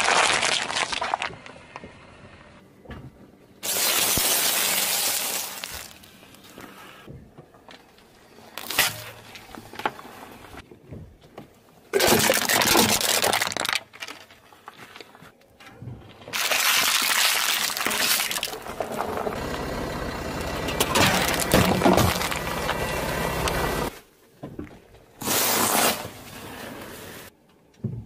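A car tyre rolling over and crushing a run of objects, each a separate burst of crunching and cracking. A plastic punnet of cherry tomatoes squashes and bursts at the start, and aluminium drink cans are crushed flat about halfway through. Other crushing bursts fall between, the longest lasting several seconds near the end.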